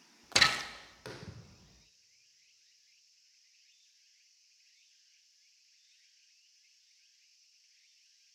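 Japanese longbow (yumi) loosed in kyudo: a loud, sharp crack of the bowstring about a third of a second in that rings off quickly, then, about three quarters of a second later, a weaker snap as the arrow strikes the target.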